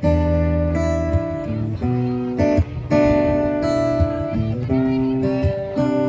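Live band playing an instrumental passage between sung verses: strummed guitar chords over a bass line, the chords changing every second or so.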